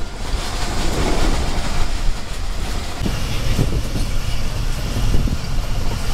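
Passenger train running at speed, heard from inside a carriage at an open window: a steady rumble of wheels on rail with a rush of air, and a few clicks of rail joints about three to four seconds in.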